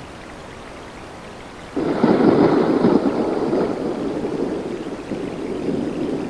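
Steady rain with a thunder clap that breaks in suddenly about two seconds in, then rumbles and slowly fades.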